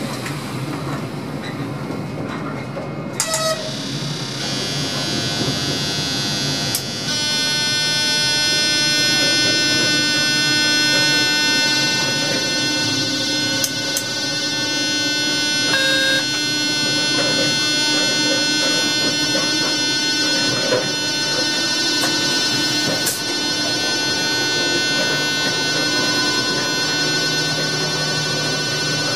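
Cab of a ČD class 362 electric locomotive on the move. About seven seconds in, a steady whine of many high tones sets in over the running noise, and a few sharp clicks sound along the way.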